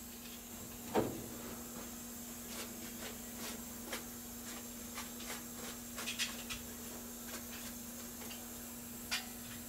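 Scattered light knocks and clicks of tools and parts against an aluminium aircraft fuselage structure, the loudest about a second in, over a steady low hum.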